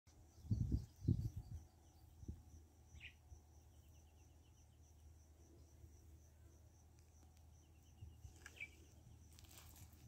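Faint insect chirping in grass, a rapid even pulse, with short bird chirps about three seconds in and again near the end. A few low thumps in the first two seconds are the loudest sounds.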